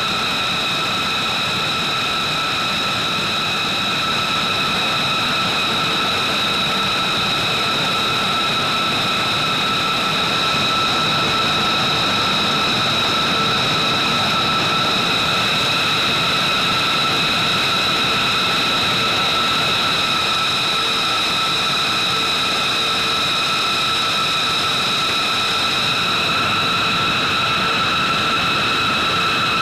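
Jet engines of a B-2 Spirit bomber idling: a steady rushing roar with a high, unchanging whine over it.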